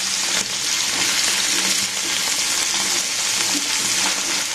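Potato chunks sizzling steadily as they shallow-fry in hot oil in a non-stick pan, turned with a silicone spatula.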